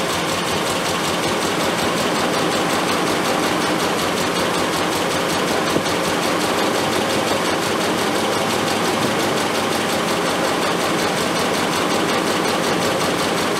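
Triumph Spitfire four-cylinder engine idling steadily on twin SU carburettors during mixture tuning, the jets just set a flat richer because the mixture was running too weak.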